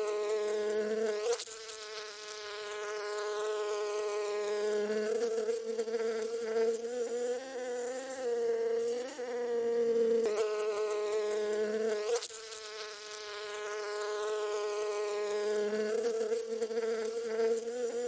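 A bee buzzing in flight close by: one steady, high drone whose pitch briefly dips and recovers every few seconds as it moves about.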